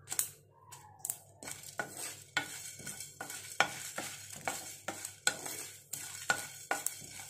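Wooden spoon stirring and scraping whole spices (coriander seeds, cumin, peppercorns, dried red chillies) around a nonstick pan as they roast, the seeds rattling and hissing against the pan. After one stroke at the start, brisk strokes of about three a second begin about a second and a half in.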